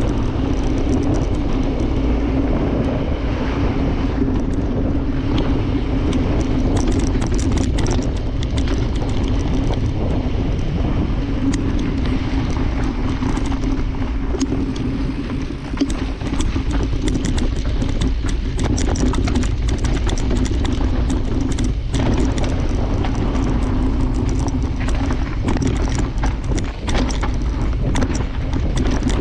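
Mountain bike descending a rough forest trail: constant wind on the microphone, with frequent rattles and knocks as the bike runs over rocks and roots, over a steady hum.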